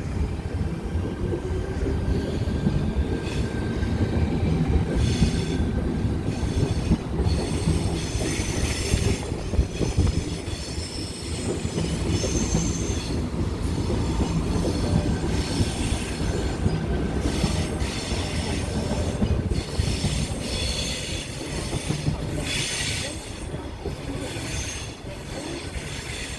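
Tangara electric train moving, with a steady low rumble and a motor whine that rises in pitch near the start as it pulls away. Bouts of high-pitched wheel squeal come and go every few seconds.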